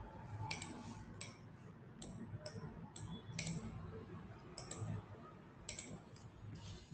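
Computer mouse clicks: about a dozen short, irregular clicks, some in quick pairs.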